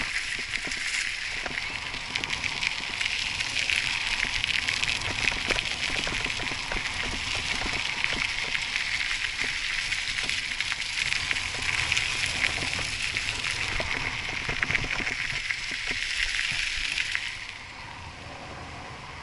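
Mountain bike tyres crunching over a loose gravel road, a continuous crackling full of small clicks. About seventeen seconds in the noise drops sharply and becomes smoother as the bike rolls onto asphalt.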